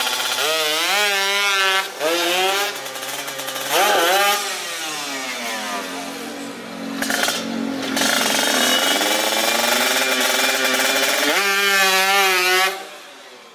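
Two-stroke Kawasaki 150 cc sport motorcycle engine being revved in sharp blips, its pitch sweeping up and falling back three times. Between the blips it settles to a lower, steadier note, and it dies away near the end.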